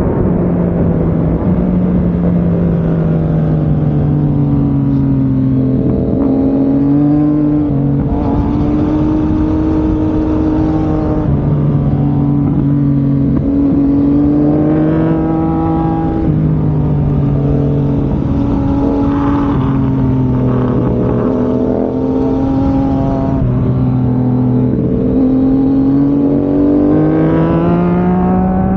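Sport motorcycle engine running under way on a downhill ride, its pitch stepping up and down several times with throttle and gear changes and climbing near the end, over a steady wind rush.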